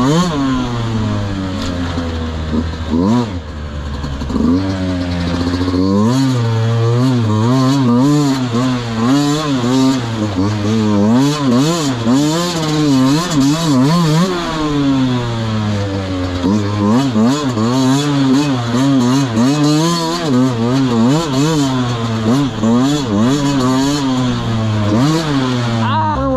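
Dirt bike engine being ridden hard, its pitch rising and falling every second or so with throttle and gear changes, with scattered knocks and rattles.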